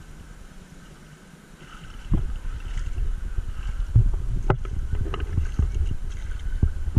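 Water sloshing and splashing around an action camera's housing as it is lowered to the surface of a shallow river, with sharp knocks from handling. It starts about two seconds in, after a quieter stretch.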